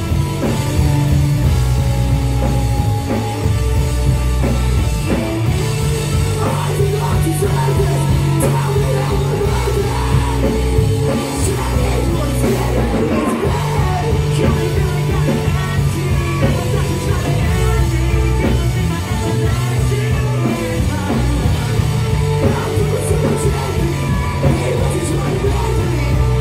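A live rock band playing heavy rock: electric guitars, bass and drums, with two vocalists singing and yelling into microphones.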